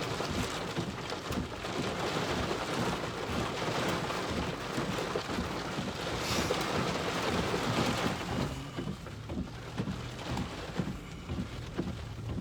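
Rain from a thunderstorm falling, a steady hiss of rain with many small drop taps, heavier for the first eight seconds or so and then easing off.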